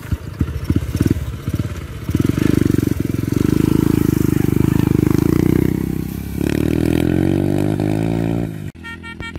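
Small step-through motorcycle engine revving as it pulls away under a heavy load of straw bales, its note rising and falling as it labours; the engine has been tuned up to haul the weight. The sound cuts off suddenly near the end.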